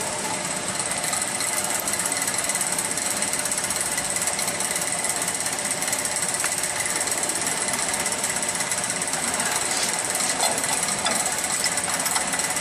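Steady machinery noise, a dense rattling hum with a faint high whine, running without pause.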